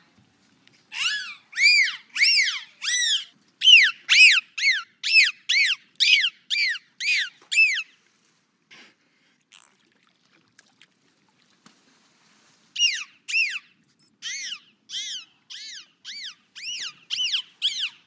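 Dolphin whistling: a run of short whistles, each rising then falling in pitch, about two a second, then a pause of about five seconds before a second run.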